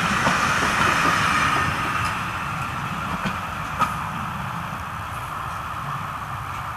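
Railway passenger coaches rolling past over jointed track and pointwork, the wheels clicking over the rail joints. The sound grows quieter about two seconds in as the last coach draws away, with one sharp click a little under four seconds in.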